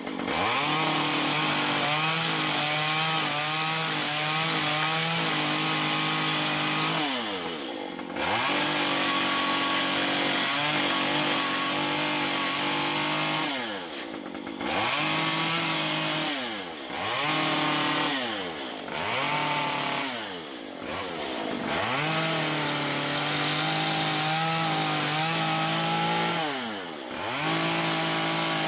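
Stihl MS 193 two-stroke chainsaw with a carving bar cutting into a wooden log at full throttle. The revs drop and climb back about six times as the trigger is let off and squeezed again between cuts.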